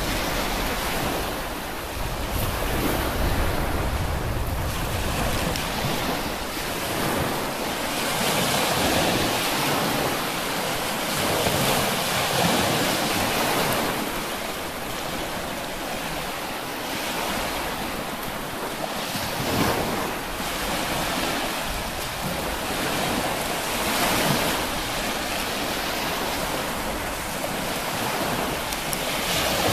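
Small sea waves washing onto the shore, the surf swelling and easing every few seconds, with wind buffeting the microphone, heaviest in the first couple of seconds.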